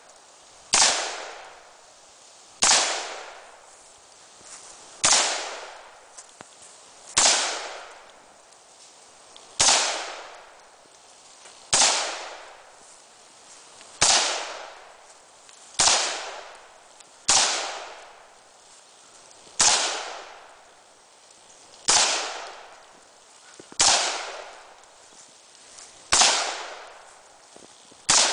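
AR-15 rifle fired in single aimed shots, about one every two seconds, around fourteen in all, each sharp crack trailing off in an echo lasting about a second.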